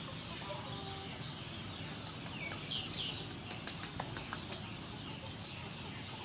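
Hands rubbing salt over the skin of a boiled pork belly slab on a wooden board, with a bird calling briefly about three seconds in and a few light clicks just after.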